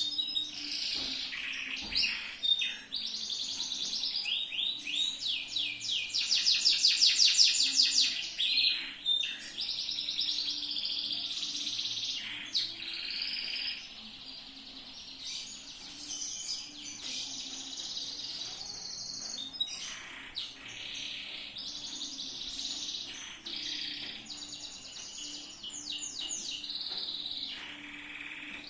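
Yellow domestic canary singing a long unbroken song of varied trills and rolls, loudest during a fast trill of rapidly repeated notes about six to eight seconds in.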